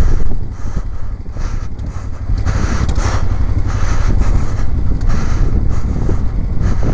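Motorcycle running along a gravel track, with the engine rumbling under wind rushing over the microphone; the level drops for a couple of seconds near the start, then picks up again.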